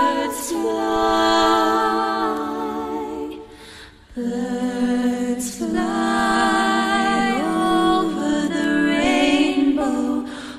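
Background music: a wordless vocal passage of long, held notes in harmony, in two phrases with a short break about four seconds in.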